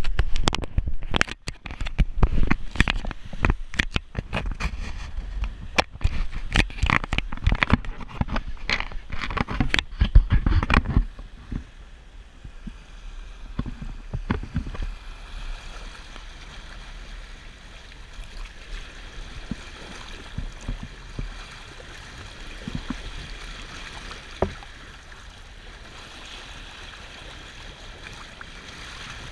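Knocks and rubbing from a GoPro being handled on its pole for the first ten seconds or so. Then the steady rush and slosh of lake water along the hull of a moving sailboat, picked up by the camera held down beside the bow wave, with one sharp click near the end.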